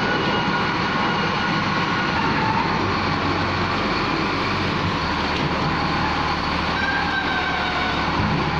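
LiuGong wheel loader running steadily as it tips its bucket and lowers it, with a high whine over the engine note.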